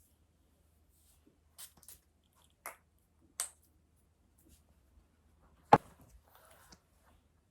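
A few light clicks and taps, then a sharper knock a little before six seconds in, followed by about a second of soft rustling.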